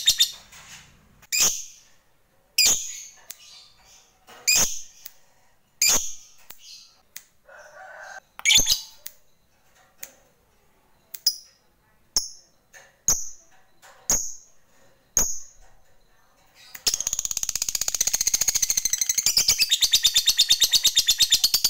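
Lovebird calling: single sharp, high-pitched chirps about once a second, then, about seventeen seconds in, a long, fast, unbroken chattering trill, the prized 'ngekek panjang' of a fighter lovebird.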